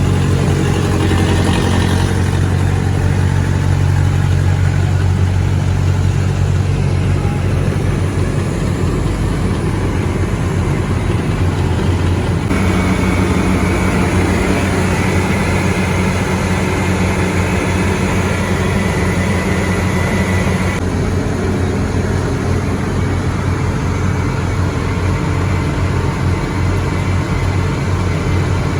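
Diesel engines of road-paving machinery running steadily. The sound changes abruptly twice, about twelve and twenty-one seconds in, with a faint high whine in the middle stretch.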